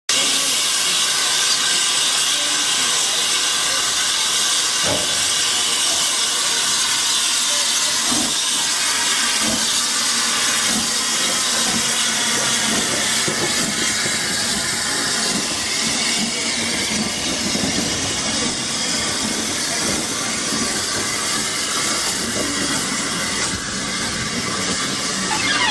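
Saddle-tank steam locomotive, an Austerity 0-6-0ST, pulling away with its train. A steady loud hiss of steam runs throughout, with a few slow, separate exhaust beats, and the hiss thins a little in the second half as the coaches roll past.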